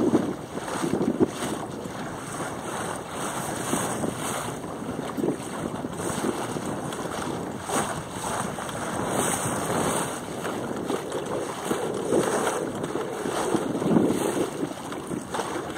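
Wind buffeting the microphone and water slapping and rushing along the hull of a 1988 Bauer 10 sailing dinghy under sail through light chop, rising and falling in uneven swells.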